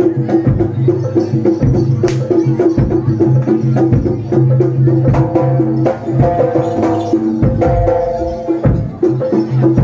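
Live jaranan ensemble music: quick, dense drum strokes over steady ringing low tones, with a higher held melody line joining about five seconds in.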